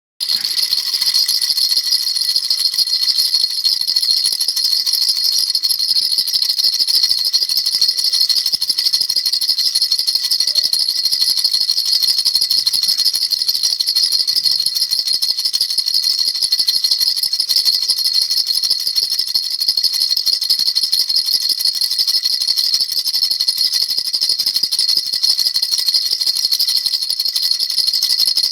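Baby rattle shaken rapidly and without a break, a steady high-pitched rattling.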